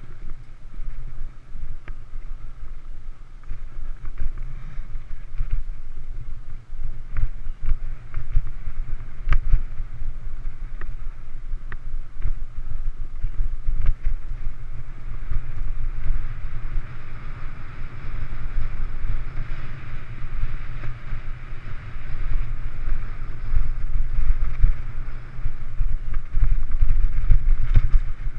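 Mountain bike ridden fast along a dirt singletrack, heard from a camera mounted on the bike: a steady rumble of wind buffeting the microphone, with frequent sharp clicks and rattles as the bike jolts over bumps and the tyres roll on dirt.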